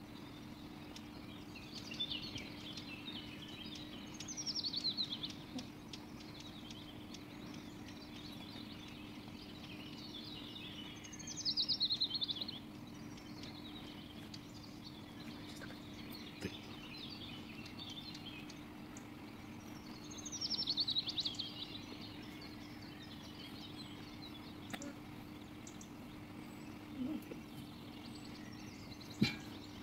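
Birds chirping in the background, with three louder trilling bursts about 4, 11 and 20 seconds in, over a steady low hum.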